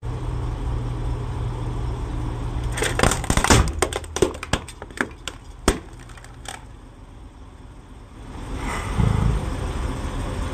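A plastic calculator cracking and snapping under a Dodge truck's tyre, in a quick series of sharp cracks a few seconds in, over the low steady running of the truck's engine. The engine gets louder near the end.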